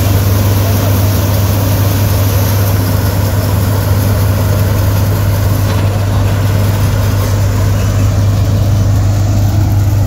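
Punni combine harvester running steadily while harvesting wheat: engine, threshing drum and straw blower together make a loud, continuous low hum with a rushing noise over it as chopped straw is blown out through the spout.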